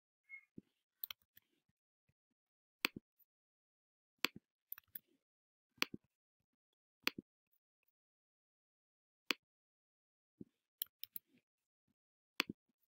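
Computer mouse clicking: about a dozen single sharp clicks at irregular intervals a second or two apart, with a quick cluster of three near the end.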